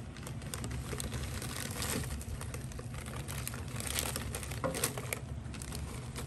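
Plastic pet-store bag crinkling as crickets and egg-crate cardboard pieces are tipped out of it into a clear plastic critter keeper, with many small irregular taps and rustles as the cardboard slides against the plastic.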